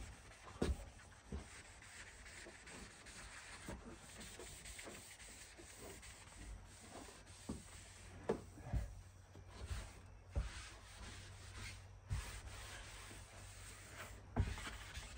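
Mr. Clean Magic Eraser scrubbing a dirty painted door: steady rubbing, with a few sharp knocks scattered through it.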